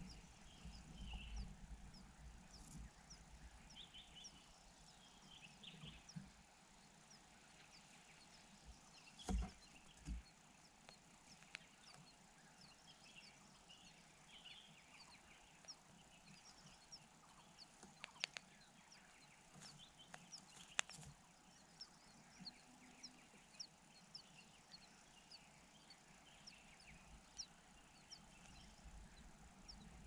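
Near silence of a quiet natural setting, with faint, rapid high chirps and some soft warbling of birds in the surroundings. A couple of soft low thumps come about nine and ten seconds in, and a few sharp ticks follow around twenty seconds.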